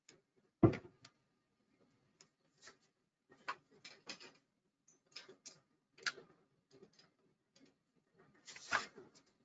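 Scattered light clicks and taps from someone working at a computer desk, at an uneven pace, with a louder thump just under a second in and another cluster of knocks near the end.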